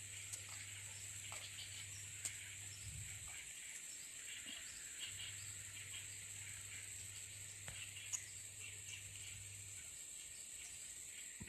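Rural outdoor ambience: a steady high-pitched insect drone with faint scattered chirps, a low hum underneath and a few soft clicks.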